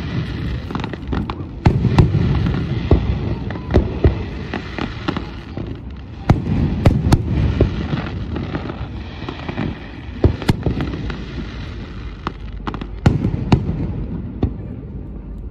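Aerial firework shells bursting in rapid succession: sharp bangs and crackles over a continuous low rumble, with several heavier bangs a few seconds apart.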